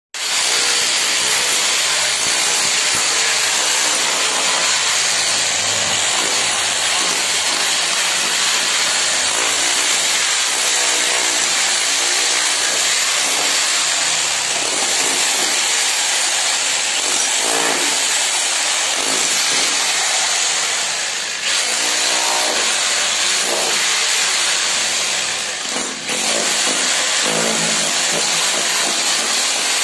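Electric rotary hammer with a chisel bit running steadily as it chips a groove into the masonry at the base of a plastered wall. It stops briefly twice, about two-thirds of the way through and again a few seconds later.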